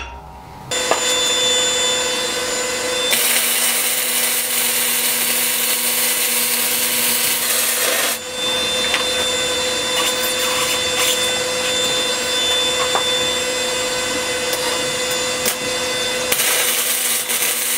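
Arc welding on steel counterweight plates: a steady crackling hiss with a constant hum beneath it, breaking off briefly about eight seconds in.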